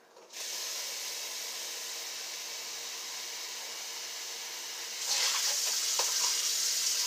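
Water running into a kitchen sink, a steady splashing rush that gets louder about five seconds in.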